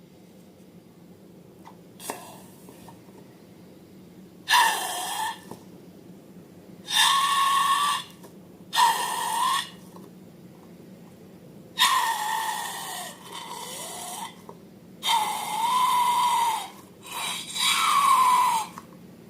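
Air escaping from balloons in a series of hissing, squealing blasts, about seven of them, each up to a second or so long, with a wavering whistle in most.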